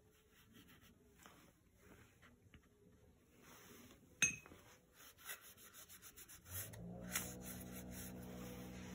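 Soft rubbing strokes of a paintbrush working watercolour across wet watercolour paper, with a single sharp click about four seconds in. A low, steady hum starts about two-thirds of the way through.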